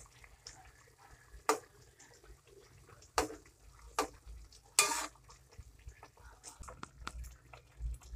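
Metal spatula clinking and scraping against a metal wok while stirring pork in broth, with about four sharper knocks among softer scrapes and a little sloshing of liquid.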